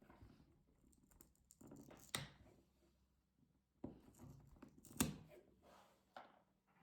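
Faint handling noises of a laptop being worked on by hand: plastic rustling and scraping, with two sharper clicks, about two seconds in and about five seconds in.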